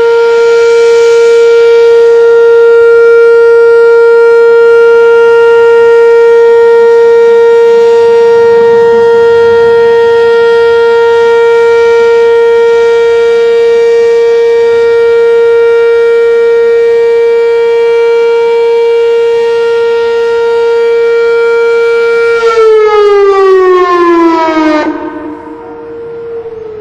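Whelen outdoor tornado warning siren sounding a loud steady tone for its monthly test. About 22 seconds in, the pitch slides down and the tone fades, leaving a fainter steady tone at the original pitch.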